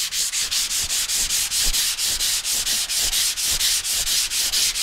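80-grit sandpaper on a hand sanding block rubbed quickly back and forth over primer on a car fender, in rapid, even strokes several times a second. Light pressure, sanding off a guide coat so that low spots and scratches in the primer show up.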